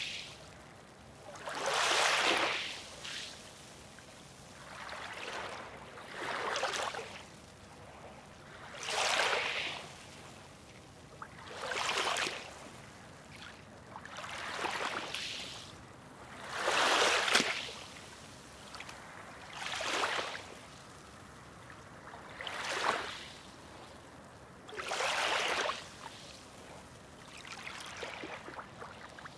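Small sea waves washing up on a beach and running back, one surge every two to three seconds. The inlet is calm.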